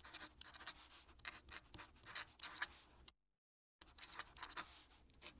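Fountain pen nib scratching across paper in quick cursive strokes, faint. The writing breaks off for about half a second a little after three seconds in, then resumes.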